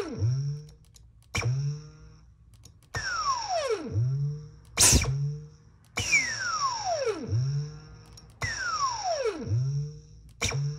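Dyson vacuum cleaner motor switched on and off in short bursts, about six times. Each burst gives a whine that falls steeply in pitch, like a ray-gun zap, with a sharp crack a little before the middle as the loudest sound.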